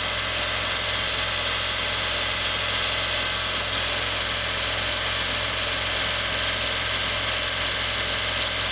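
Craftsman 2x42 belt grinder running steadily, its abrasive belt grinding a steel knife blank to profile it, with a constant grinding hiss over a low motor hum.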